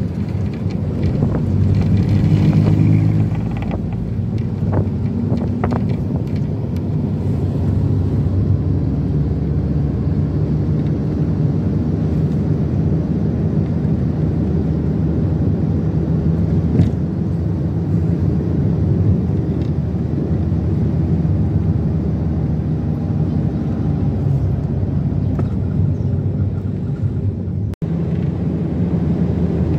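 Minivan on the road: a steady drone of engine hum and road noise, briefly cutting out for an instant near the end.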